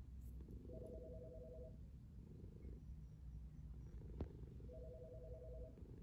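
A telephone ringing twice, each ring a fast two-tone trill about a second long, the second starting about three seconds after the first. A low rumble runs underneath, and a single sharp click comes just after four seconds in.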